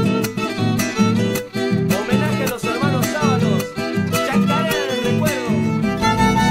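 Instrumental opening of a chacarera: acoustic guitar strumming a brisk rhythm, with a violin playing a gliding, wavering melody over it. A low part joins near the end.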